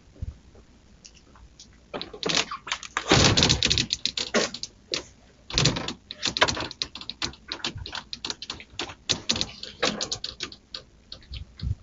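A door being rattled and struck: two long bursts of rapid knocks, clicks and clattering, the first starting about two seconds in and the second just past the middle.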